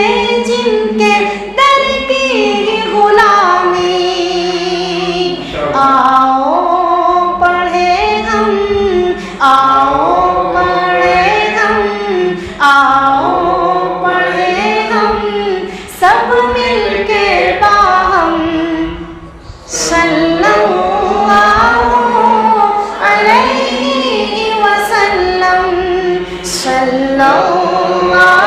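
A man singing a naat unaccompanied, in long, ornamented, melodic lines.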